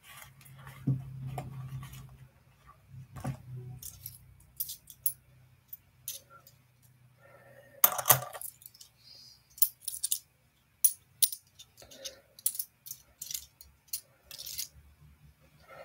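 Coins being handled by hand, a string of sharp clinks and clicks at irregular intervals as they drop and knock together, the loudest about eight seconds in.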